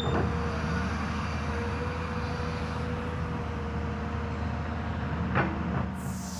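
Hyundai HX210S excavator's diesel engine running steadily, with a steady whine over the low drone and a single knock near the end.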